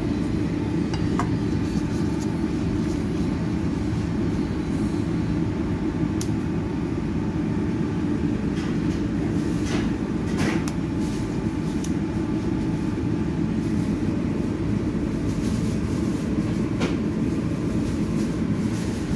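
Steady low mechanical rumble from background machinery, with a few light clicks and knocks scattered through it.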